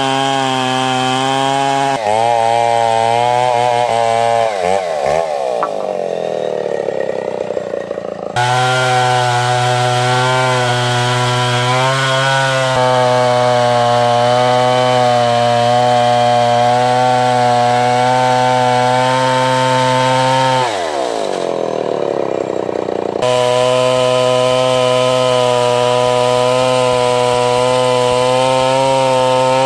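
A Stihl 070 two-stroke chainsaw rips ulin ironwood lengthwise into planks, its engine running steadily at full throttle under load. Twice, a few seconds in and again about two-thirds through, the engine winds down as the throttle is eased off. Each time the full-speed cutting comes back abruptly.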